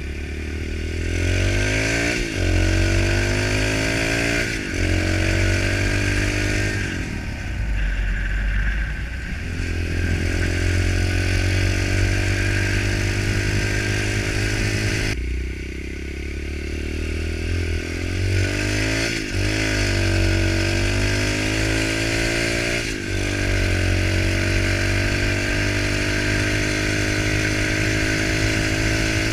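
Pit bike engine under way on a road. The revs climb and then drop sharply several times as it is shifted through the gears, with wind noise underneath.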